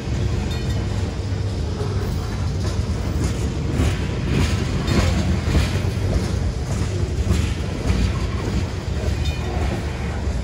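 A freight train's covered hopper cars rolling past at a grade crossing: a steady low rumble of steel wheels on rail, with repeated clacking as wheels pass over rail joints, heaviest in the middle.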